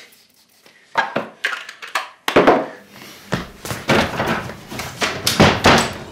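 A quick run of loud knocks and thuds, the loudest about two and a half seconds in, followed by several longer bangs.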